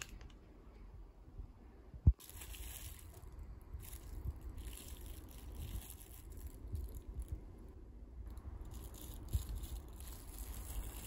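Faint kitchen handling noises as gimbap fillings are laid onto rice on a sheet of laver: a single thump about two seconds in, then on-and-off soft rustling.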